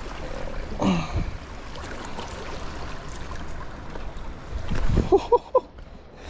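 Water washing over a rocky shoreline, a steady watery hiss. A short pitched sound comes about a second in, and a quick run of short pitched blips over a low rumble about five seconds in.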